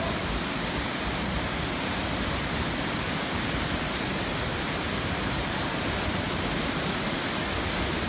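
Steady rushing of a waterfall and a rocky mountain stream.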